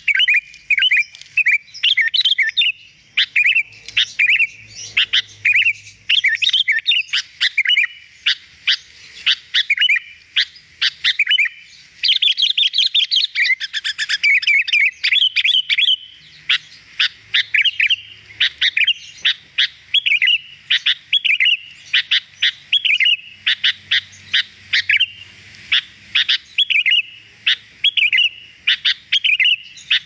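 Sooty-headed bulbul (kutilang) singing hard: a dense, almost unbroken stream of short bubbling whistles and chirps, phrase after phrase with only brief gaps.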